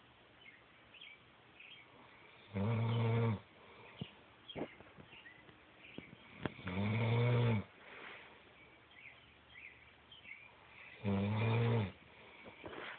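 A man snoring in his sleep: three loud, deep snores, each about a second long and about four seconds apart, with quiet breathing between them. The uploader blames the snoring on allergies.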